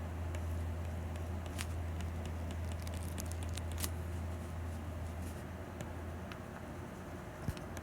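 Stylus tip tapping and scratching on a tablet's glass screen while sketching: irregular light clicks with one sharper tap near the end, over a steady low hum.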